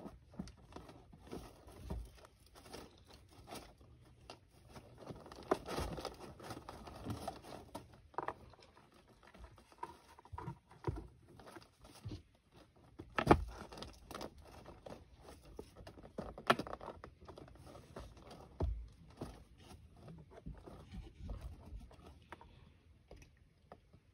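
A Bengal hybrid cat rummaging with his head in a cardboard box: irregular soft rustles, scrapes and crinkles of cardboard, with a few sharper knocks, the loudest about 13 seconds in.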